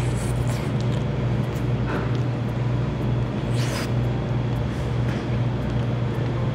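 Background music with a steady low drone, and a brief crunchy chewing sound about three and a half seconds in.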